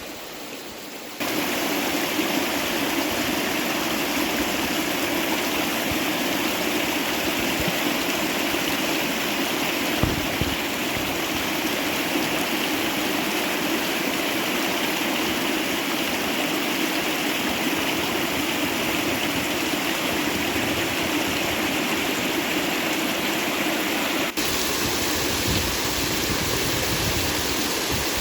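Steady rush of water from a mountain stream or waterfall. It jumps noticeably louder about a second in.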